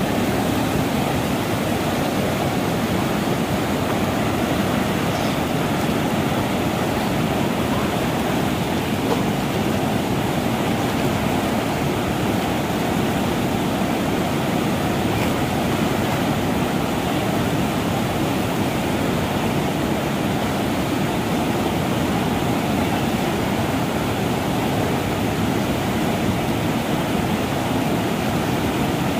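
Whitewater rapids rushing, a steady, even wash of churning river water over rocks and standing waves.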